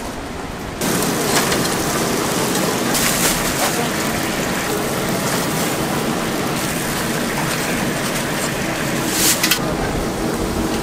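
Chicken deep-frying in a cauldron of hot oil, a dense, steady sizzle that suddenly grows louder about a second in.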